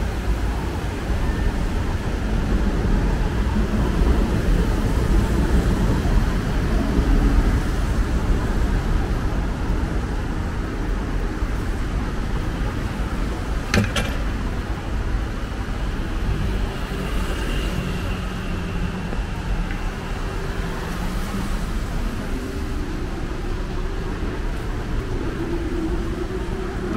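City street traffic: a steady rush and rumble of passing cars and buses. An engine note rises over the last several seconds, and there is one sharp click about halfway through.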